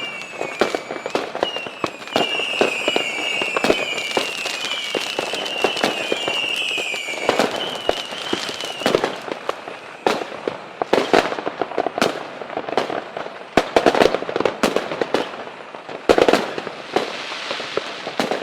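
Fireworks: a run of whistling rockets, each whistle dipping slightly in pitch, over a steady stream of sharp pops and bangs. The whistles stop about halfway through, and scattered loud bangs and crackling carry on.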